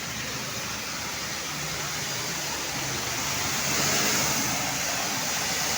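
Pressure washer running, its water jet spraying with a steady hiss over a low motor hum; the spray gets louder about four seconds in.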